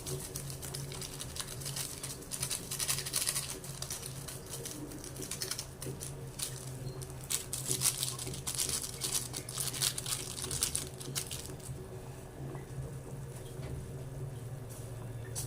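Rapid light clicking and rustling from kitchen handling over a steady low hum; the clicking stops about eleven seconds in, leaving the hum.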